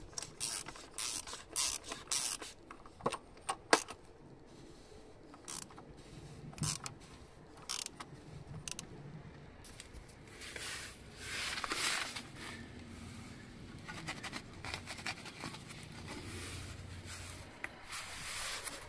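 Metal tool work on a car engine: a ratchet wrench on the oil filter housing cap clicking and clinking in irregular short strokes. About ten seconds in this gives way to scraping and rubbing from handling underneath the car.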